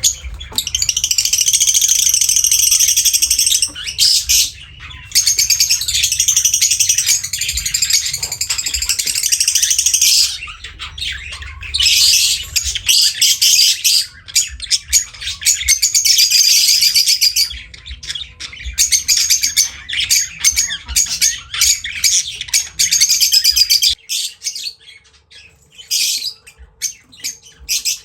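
Pet lovebirds chattering: fast, high-pitched chirps and squawks in long unbroken runs with brief pauses, thinning to scattered short chirps near the end.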